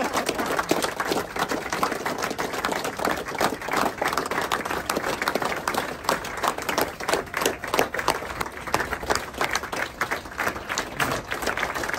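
A large crowd applauding: many hands clapping in a dense, steady patter.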